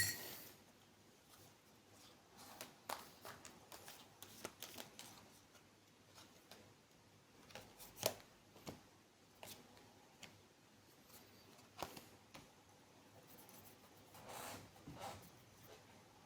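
Tarot cards being handled and shuffled by hand: faint rustles and scattered soft card clicks, with a longer rustle near the end.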